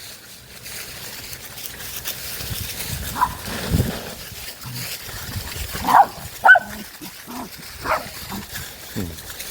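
Dogs at rough play, with a rustling of dry leaves in the first half and several short barks and yelps in the second half.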